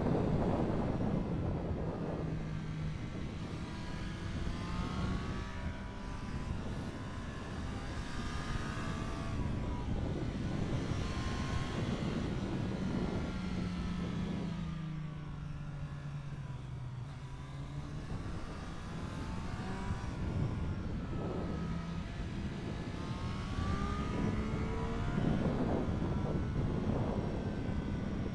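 Triumph Street Triple 765 RS's inline three-cylinder engine pulling hard through the gears under full throttle. Its note climbs and then drops back at each upshift. Around the middle it falls away slowly as the bike slows, then it picks up and climbs again toward the end.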